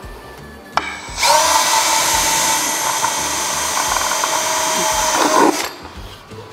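Cordless drill drilling a rivet hole through a metal plate: a single run of about four seconds, with a rising whine as the motor spins up about a second in and falling off near the end.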